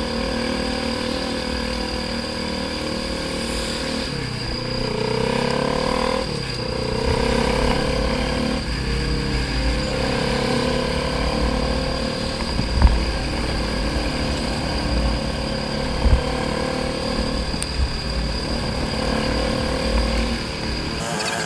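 Motorcycle engine running under way, its pitch dipping and climbing back a few times in the first ten seconds as the throttle and gears change, over a steady low rumble with a couple of short thumps.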